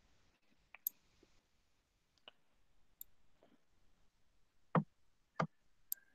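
Near-quiet line broken by about seven short, scattered clicks and taps; the two a little before and after the five-second mark are the loudest.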